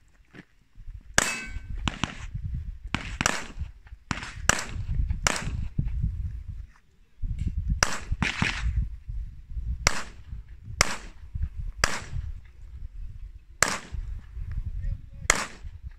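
A string of 9mm pistol shots from a Glock 17 Gen5, about a dozen in singles and quick pairs, with a brief pause of about a second a little past the middle.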